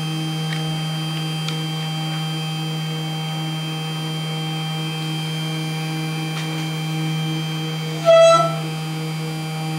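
Small desktop CNC PCB milling machine running, with a steady motor hum and a few faint ticks. About eight seconds in, a loud, short whine with overtones sounds for under half a second.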